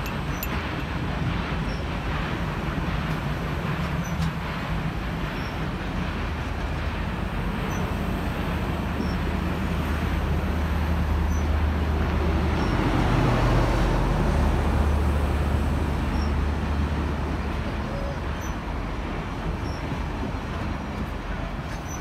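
Yellow passenger cars of a steam excursion train rolling past close by: a steady rumble with a low hum underneath, growing loudest a little past the middle and easing toward the end.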